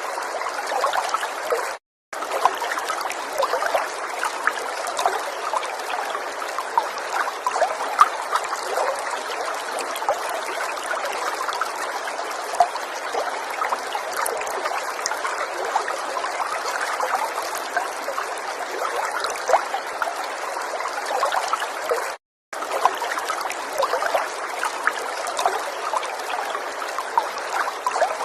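River water running and trickling over stones, a steady babble dotted with small splashes and bubbles, with no low rumble. It cuts out to silence for a split second twice, once about two seconds in and again about 22 seconds in.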